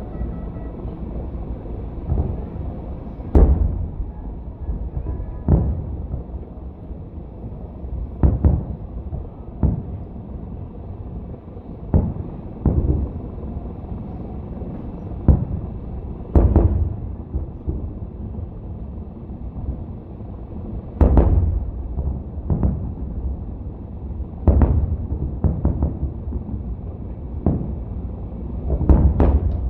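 Fireworks display: about a dozen sharp booms at uneven gaps of one to four seconds, over a steady low rumble that carries on between them.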